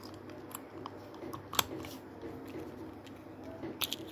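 Small hard plastic toy pieces clicking and tapping as they are handled, with one sharp click about one and a half seconds in and a few quick clicks near the end.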